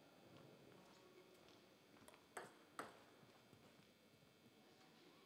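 Near silence broken by two sharp clicks of a table tennis ball, less than half a second apart, about two and a half seconds in.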